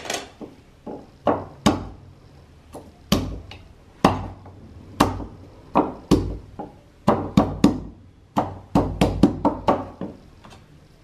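Wooden pestle pounding ginger and garlic in a wooden mortar: about twenty separate strikes, coming faster from about seven seconds in and stopping about ten seconds in.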